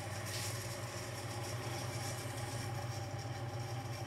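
IndusCom ICIFSDI3-12060 ceiling fan running at a steady speed: an even electric motor hum with a faint whirring hiss. The bearings are bad, and the owner suspects an underpowered capacitor.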